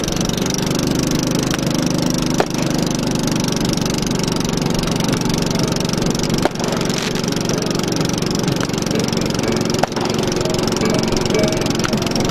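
Boat engine running steadily, with a few brief knocks.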